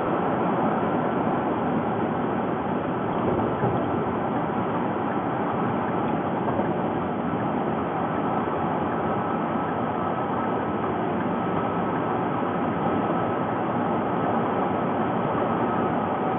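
Steady road and tyre noise of a car cruising at freeway speed, heard inside the cabin, with a faint steady high whine running under it.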